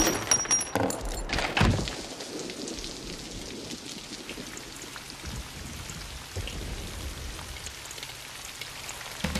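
Steady rain falling, after a few sharp bangs and debris impacts in the first second and a half.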